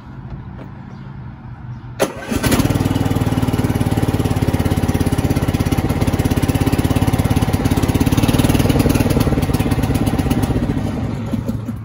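Riding lawn mower's small engine started from cold: it fires about two seconds in and settles into a steady, loud run with rapid firing pulses, dropping off somewhat near the end.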